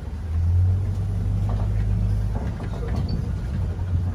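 Safari truck's engine running with a steady low hum, heard from aboard the truck, getting louder about half a second in as it pulls ahead.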